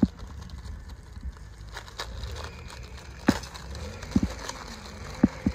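Several short, sharp clicks and knocks of metal sewing-machine attachments being handled, about six in all, some with a brief low ring, over a low steady hum.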